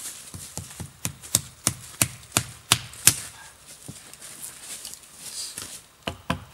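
An axe pounding a wooden stake into the ground: steady sharp knocks about three a second, pausing about four seconds in and starting again near the end.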